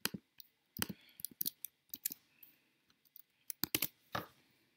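Scattered sharp clicks of a computer mouse and keyboard, about a dozen over a few seconds, some in quick clusters, as code is pasted into an editor and the tests are run.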